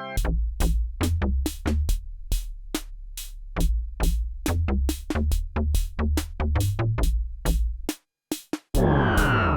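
MFB-301 Pro drum machine playing a programmed electronic beat, with quick even hi-hat-like ticks over a low synth bass line that changes note. The pattern stops about eight seconds in, and after a brief gap a new dense synth sound comes in with falling pitch.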